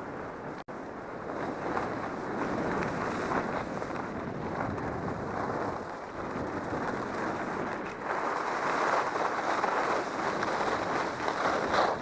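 Skis sliding and scraping steadily over groomed snow on a run, mixed with wind rushing over the microphone. The sound drops out for an instant just under a second in and grows louder in the last few seconds.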